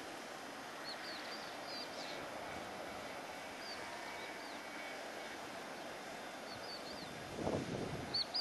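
Outdoor ambience: a steady rushing noise with short, high bird chirps every second or two, and a brief louder sound about seven and a half seconds in.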